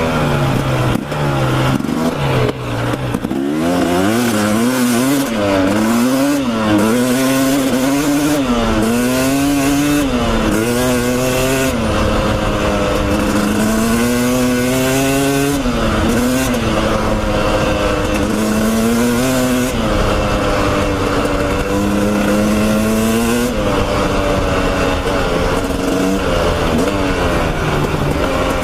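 KTM dirt bike engine being ridden on a trail, its pitch rising and falling over and over as the throttle is worked on and off, with a few steadier stretches near the end.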